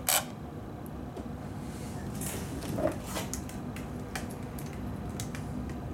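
A few short plastic clicks and handling rustles from a Kyosho KT531P radio-control transmitter being switched on with its trigger held, the way its training mode is cancelled. One sharp click comes right at the start, with more about two and three seconds in.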